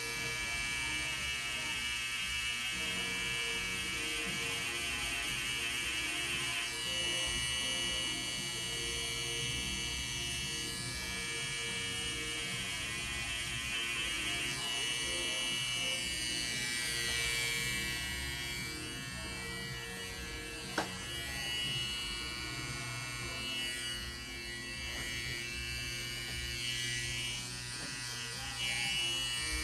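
Electric tattoo machine buzzing steadily as it works ink into skin, with one sharp click about two-thirds of the way through.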